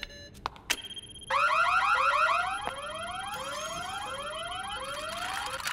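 Cartoon laboratory warning alarm: a rising whoop repeated about every 0.7 seconds, seven times, over a steady high tone. It is preceded by a few clicks of control-panel buttons and signals that the magic test has started.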